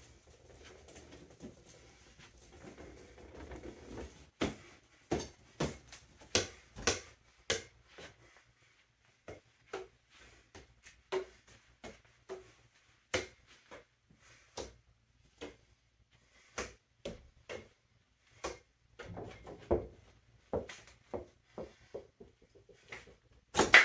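Irregular sharp taps and thuds of juggling props (clubs, balls and a hat) being tossed, caught and handled, sometimes several a second, with one loud knock near the end.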